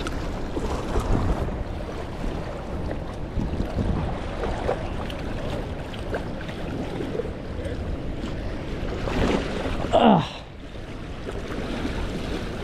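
Rushing water below a dam with wind buffeting the microphone. About ten seconds in, a brief, louder sound falls steeply in pitch.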